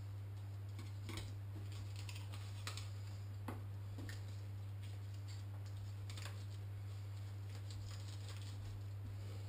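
Kitchen knife filleting a mackerel on a wooden chopping board: faint, scattered clicks and scrapes of the blade through the fish and against the board, over a steady low hum.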